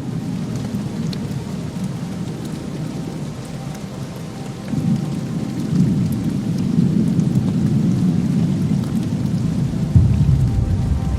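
Steady rain with scattered drops and a continuous low rolling rumble that swells about five seconds in and surges again near the end.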